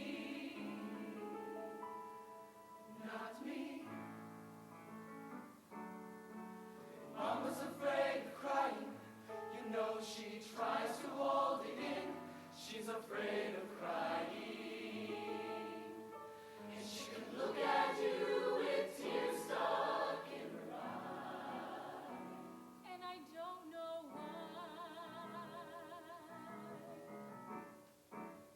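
High school show choir singing, with many voices holding notes together; it grows louder with sharp consonants through the middle, then turns to a softer passage of wavering held notes near the end.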